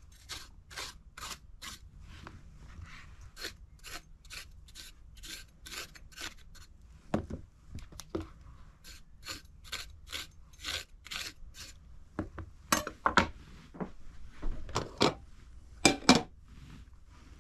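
Rhythmic scraping or rasping strokes, about two to three a second, followed near the end by several louder, heavier knocks.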